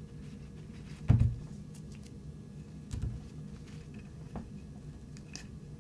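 Handling noise from a 1911 pistol slide while a solvent patch is pushed into its extractor tunnel with a thin rod. There is a dull thump about a second in, a softer one near three seconds, and a few faint light clicks.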